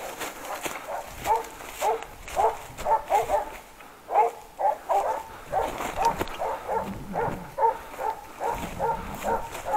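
Hunting dogs barking steadily, about two barks a second, starting about a second in: baying at a wild boar they have found.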